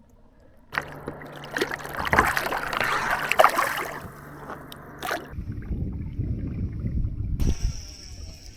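Water splashing and gurgling against a kayak hull, with a steady low hum under it for the first half; a deeper rumble follows, and a faint high whine comes in near the end.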